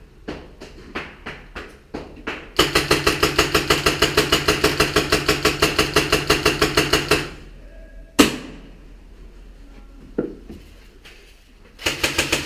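Airsoft rifle firing: a few single shots, then a long, rapid full-auto burst of about four and a half seconds, followed by a couple of scattered shots.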